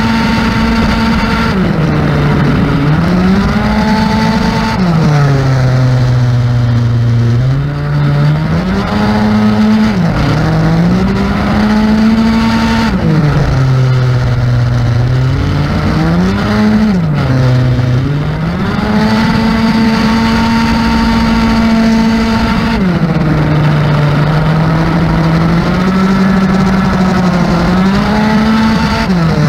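Yamaha Aerox R/T 70 racing scooter's 70cc two-stroke single-cylinder engine, ridden hard. The revs hold high and steady on the straights and drop away into each corner, then climb back up, about six times over.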